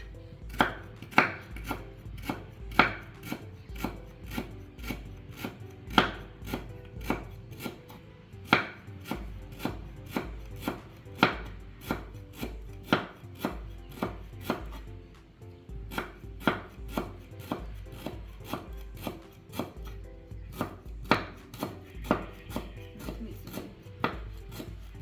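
Repeated sharp knocks at an uneven pace, about two a second, some harder than others.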